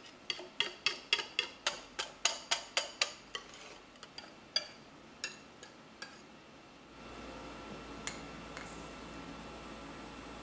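A metal wire whisk clinks against a bowl while it scrapes out egg-yolk batter, with about a dozen quick ringing taps, about four a second. A few scattered taps follow, and after about seven seconds there is a faint steady hum with one more click.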